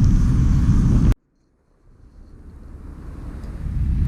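Low, steady rumble of wind on the microphone that cuts off abruptly about a second in, leaving silence, then fades back up to full level.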